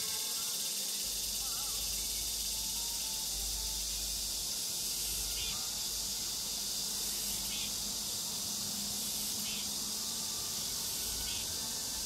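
Steady high-pitched chorus of insects in summer greenery, a constant hiss, with a few faint short chirps now and then.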